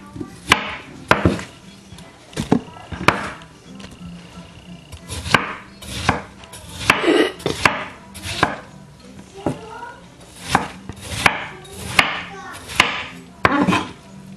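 Kitchen knife cutting fruit on a wooden cutting board: a string of sharp knocks at an uneven pace, about one a second.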